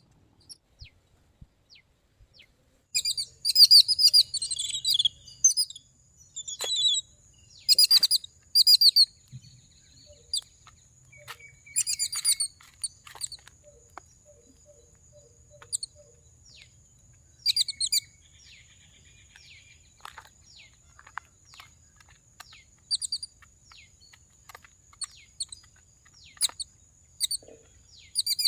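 Small birds chirping in quick clusters of short, high notes, busiest in the first half. A steady high-pitched whine runs underneath from about three seconds in.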